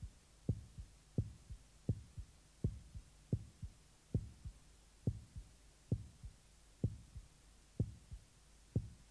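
Heartbeat sound effect: about eleven paired low thumps, a strong beat followed by a weaker one, at first a little under a second apart and slowing gradually to about one a second.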